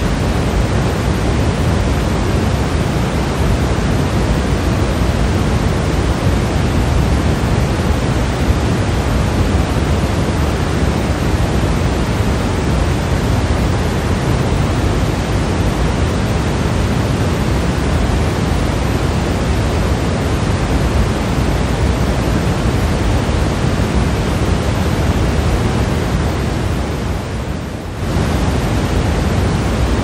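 Steady pink noise: an even hiss, fuller in the low end, that dips briefly in level near the end and comes straight back.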